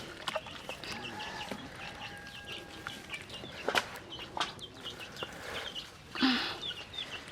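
Chickens calling: many short, high peeps repeating several times a second, with a few sharp knocks and a louder brief sound about six seconds in.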